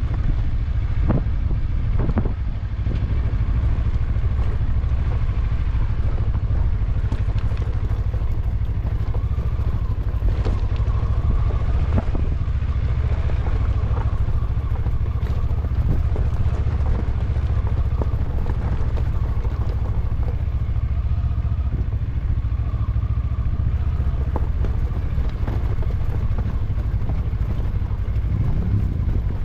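A motor vehicle being driven off-road: its engine runs steadily under a heavy low rumble, with occasional knocks and rattles.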